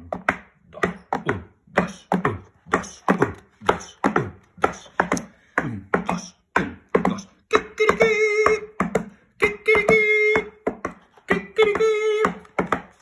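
A voice doing mouth sounds for marching: short rhythmic beats about twice a second, then three long held notes of about a second each, starting about seven and a half seconds in.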